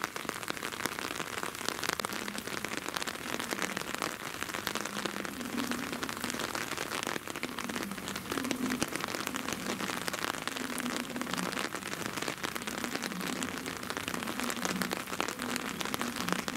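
Steady, dense crackling patter like rain on a surface, with a faint low wavering hum underneath from about five seconds in.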